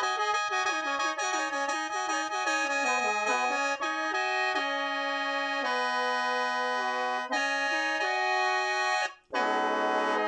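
Lao khaen, a bamboo free-reed mouth organ, played: a quick running melody over a steady drone for the first few seconds, then slower long-held chords. A brief break about nine seconds in, then a final chord is held.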